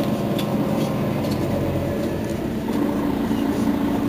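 Mercedes-Benz Citaro facelift city bus engine idling steadily while the bus stands at a stop, a low even hum.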